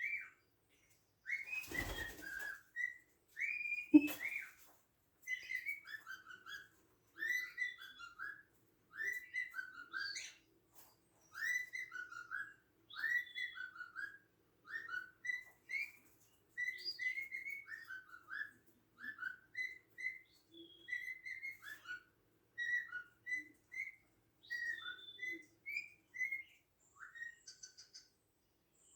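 Cockatiel whistling: short sliding whistled notes in quick phrases, repeated over and over. There is a brief rustling thump near the start and a sharp knock about four seconds in.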